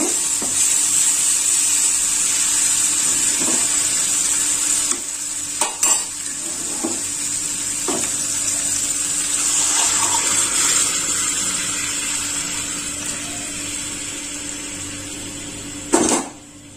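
Tomato-and-spice masala sizzling in oil in a metal kadai, with a wooden spoon stirring and now and then knocking against the pan. Boiled chickpeas and their water go in partway through, and the sizzle slowly dies down, ending in one sharp knock of the spoon.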